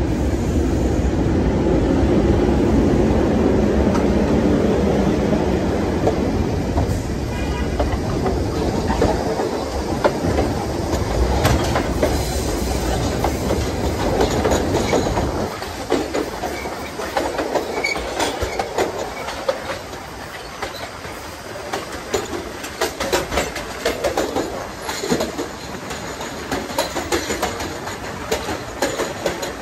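New York City Subway 1 train running along elevated track: a heavy rumble that drops off about halfway through, then a run of sharp clacks as the wheels pass over rail joints, with a brief faint wheel squeal.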